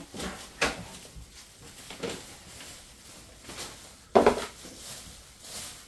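Plastic shopping bag rustling as items are rummaged and handled inside it, in short irregular crinkles with one louder noise about four seconds in.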